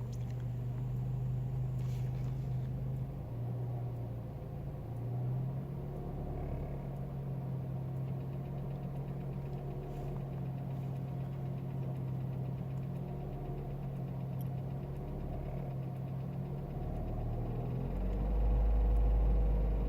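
Renault Mégane 1.6 16v K4M engine running, heard from inside the cabin, with a knocking rattle from the engine; the rattle turned out to come from a loose oil pump chain and a slightly binding oil pump. The engine note shifts a few times and grows louder near the end.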